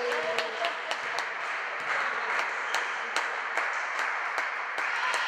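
Spectators in a sports hall clapping in a steady rhythm, about two to three claps a second, over a constant crowd hubbub.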